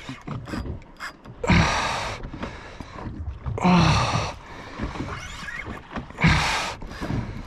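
A man's heavy, strained breaths and grunts: three loud exhalations about two seconds apart, from the effort of fighting a big fish on a rod and reel.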